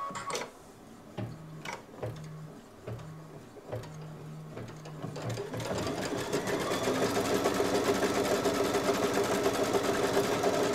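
Brother Luminaire embroidery machine: a few short low hums and clicks, then about five seconds in it starts stitching, its pitch rising as it speeds up into a steady fast rattle of needle strokes, sewing the batting down in the hoop.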